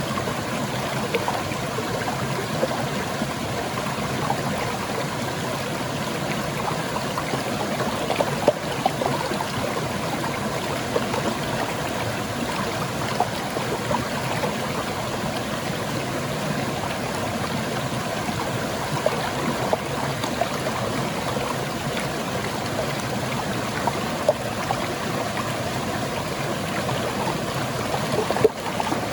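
Water from a small rocky waterfall pouring and splashing over stones in a stream: a steady rush with scattered brighter splashes.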